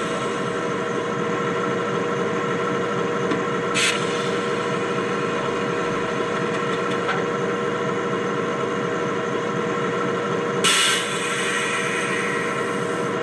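Sound-equipped model of a Class 70 diesel locomotive playing its recorded engine idling through a small EM1 speaker. It is a steady running sound with two short hisses, the second louder.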